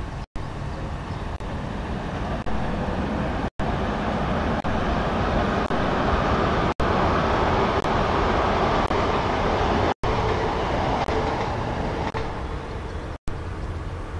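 A passenger motor ship passing close by: a steady engine and water rush that swells to its loudest in the middle and then eases off. The sound cuts out for an instant about every three seconds.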